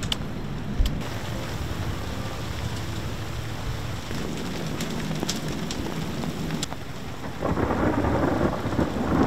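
Rain falling on the sea and the boat: a steady hiss with a few sharp ticks of drops, swelling into a louder rumble about seven seconds in.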